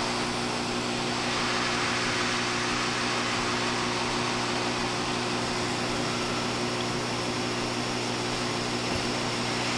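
Hot air rework station blowing hot air from its nozzle: a steady whirring rush of air with a low, even hum. It is heating a wide surface-mount memory chip to melt its solder before the chip is lifted off the board.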